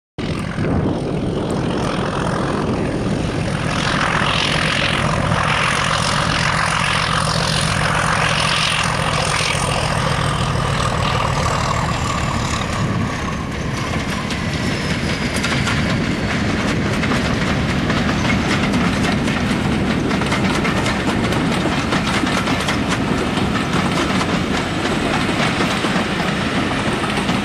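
BR Class 31 diesel locomotive hauling a train of coaches past at speed: engine noise with a high whine that falls in pitch as it goes by, then continuous clickety-clack of the coach wheels over the rail joints.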